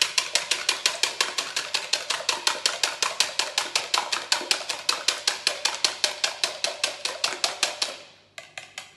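Wire whisk beating an egg-and-milk mixture in a plastic measuring jug, the wires clicking against the jug in a fast, even rhythm of about six strokes a second. The whisking stops about eight seconds in, followed by a few light knocks.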